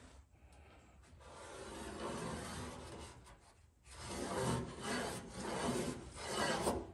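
Sheet-steel piece being filed by hand, a scratchy rasping in strokes: one long stroke, then several shorter, louder ones in the second half.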